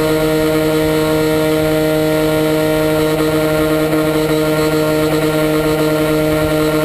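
An RC model airplane's motor and propeller drone at a steady pitch, heard from a camera on board, with wind buffeting the microphone.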